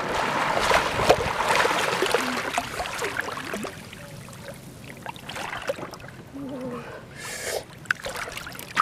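Shallow muddy water splashing and sloshing as a person wades and works their hands through it, busiest and loudest in the first three seconds, then quieter with a brief louder rush about seven seconds in.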